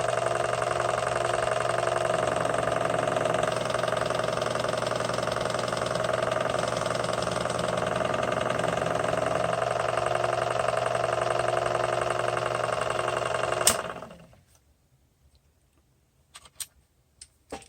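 Sherline mini lathe running steadily with a motor whine, then switched off with a sharp click about three-quarters of the way through and spinning down within about a second. A few small clicks follow near the end.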